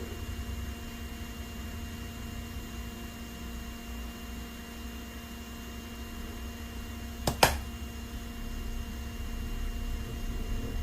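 Steady fan hum from repair-bench equipment, with two sharp clicks in quick succession about seven seconds in.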